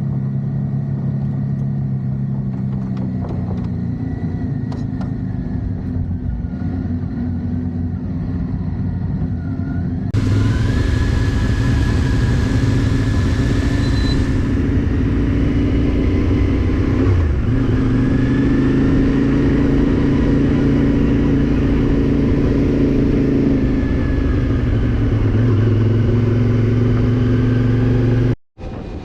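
Motorcycle engine running on the move, its pitch rising and falling with the throttle. It gets louder about ten seconds in and cuts out for a moment near the end.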